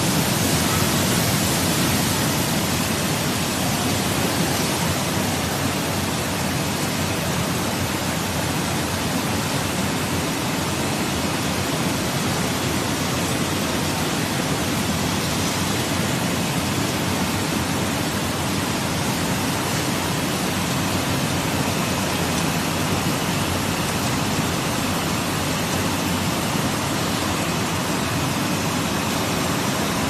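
Water churning and splashing in a bubble washing tank as air bubbles agitate it and overhead spray nozzles pour down onto it: a steady, even rush like a waterfall.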